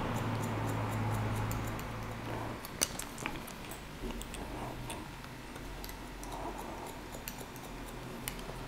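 Hairdressing scissors snipping and point-cutting into the top of the hair: light, irregular clicks, the sharpest about three seconds in.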